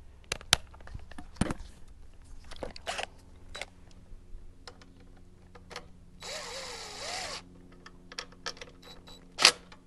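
Clicks and knocks of tools and metal parts being handled while a motorcycle headlight bracket is installed. About six seconds in, a power tool such as a cordless drill or driver runs briefly for about a second. A sharp knock comes near the end.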